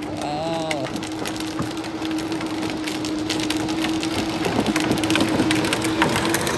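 Power Wheels battery ride-on toy car driving over asphalt: its electric drive motor whines at a steady pitch while the plastic wheels crackle and grind on the pavement. The sound grows gradually louder as the car approaches.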